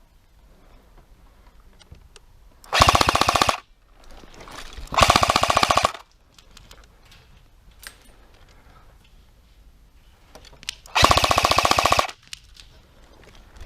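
Airsoft gun firing three short full-auto bursts, each about a second long, the last near the end.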